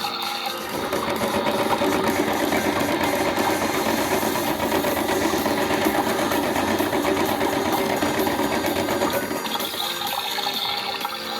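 Toy washing machine's small motor running, starting just under a second in and stopping about two seconds before the end, with a water-filling sound before and after it.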